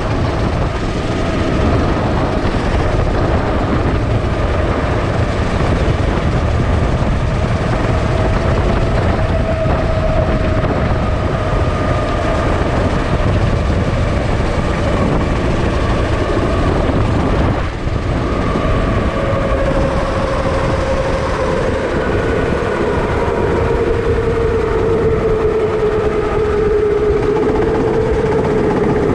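Sodi rental kart's engine running hard at racing speed, heard from on board. Its pitch rises and falls with the throttle through the corners, with a brief dip about two-thirds of the way through and a slow drop in pitch near the end.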